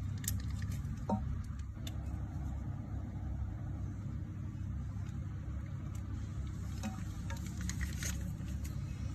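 Steady low rumble, with a few faint sharp clicks: one cluster near the start and a few more about seven to eight seconds in.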